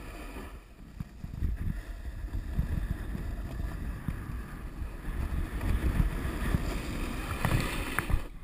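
Snowboard sliding and carving over packed snow, its edges scraping steadily, with wind rumbling on the camera's microphone. Near the end a harsher scrape as the board skids to a stop.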